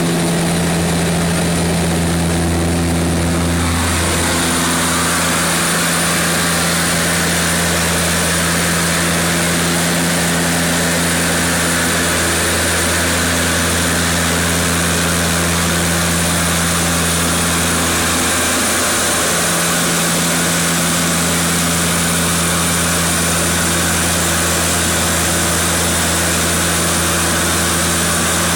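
Seaplane's propeller engines running in cruise, heard from inside the cabin: a loud, steady drone with a thin high whine over it. The tone wavers briefly about eighteen seconds in.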